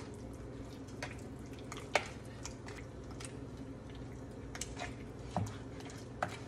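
Wooden spoon stirring mayonnaise-coated raw chicken strips in a bowl: soft wet squishing with scattered clicks of the spoon against the bowl, one sharper click about two seconds in.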